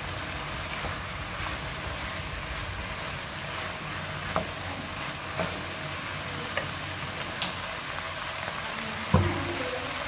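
Napa cabbage sizzling in a wok over a gas burner: a steady hiss, with a few light knocks, the loudest a little after nine seconds in.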